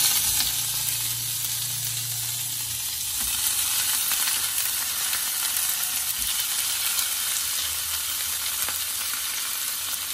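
Raw chicken pieces hitting hot oil in a frying pan with dried red chillies and curry leaves, sizzling. The sizzle is loudest right at the start as the meat goes in, then settles into a steady frying hiss.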